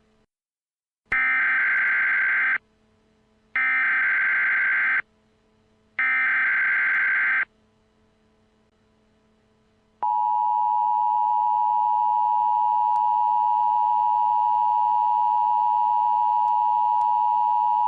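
Emergency Alert System broadcast tones. First come three bursts of SAME header data, each a buzzing digital warble about a second and a half long with about a second between them. A couple of seconds later the EAS two-tone attention signal starts: two close pitches (853 and 960 Hz) sounding together and held steady for about eight seconds.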